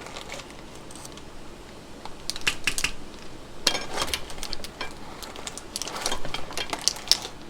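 Light clicks and taps of kitchen utensils and seasoning containers, in several short clusters.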